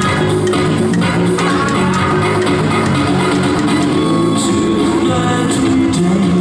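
Loud upbeat dance music with a steady beat, playing for a Latin formation dance routine.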